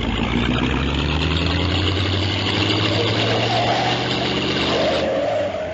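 A motor vehicle engine running steadily, its pitch rising slowly. It thins out and drops away near the end.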